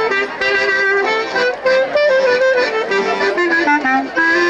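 Instrumental folk tune led by an accordion: a melody moving up and down in short steps over held lower notes, played as an interlude between verses of a sung ballad.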